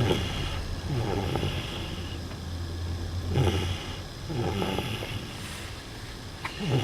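Snoring in deep sleep: rough snores in pairs, one breath cycle about every three seconds. A low steady hum underneath stops about halfway through.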